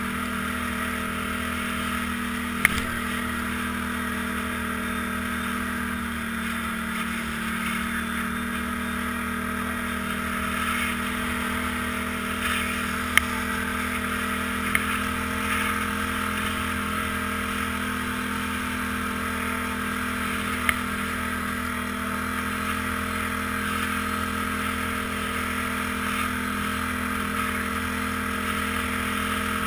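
ATV engine running at a steady riding speed, with a few short sharp knocks as the machine rattles over the trail.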